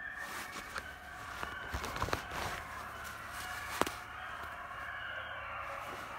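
A pack of beagles baying on a rabbit's trail, their drawn-out bawls overlapping. Several sharp snaps of twigs and dry leaves are close by in the first four seconds.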